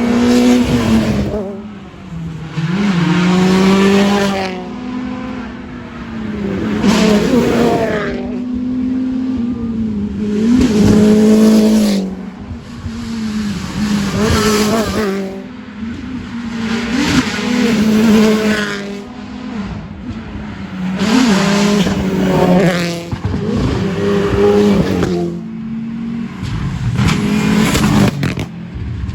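Rally car engines revving hard and dropping off repeatedly, in about eight surges a few seconds apart, as the cars accelerate and brake through a stage.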